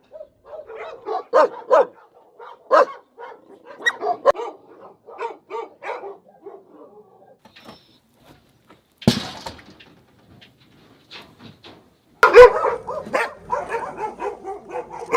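Many dogs barking and yelping, several at once, in short overlapping calls. A brief loud clatter sounds about nine seconds in, and the barking turns loud and dense about twelve seconds in.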